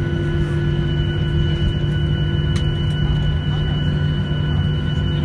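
Steady cabin noise inside a Boeing 737-900ER taxiing after landing: its CFM56-7B engines at low taxi power give a constant low drone with several steady tones above it.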